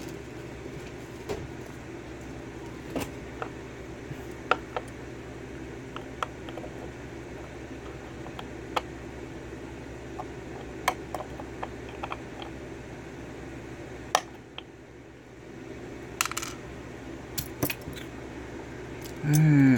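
Scattered small metallic clicks and taps from a Schlage 5-pin lock cylinder being handled and taken apart with tools, with a tighter run of clicks near the end. Underneath is a steady low hum.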